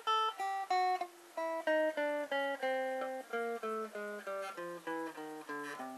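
Clean electric guitar playing single notes picked with alternating down and up strokes, about three to four notes a second, in an alternate-picking exercise. The notes step down in pitch across the strings, start higher again about halfway through, and step down once more.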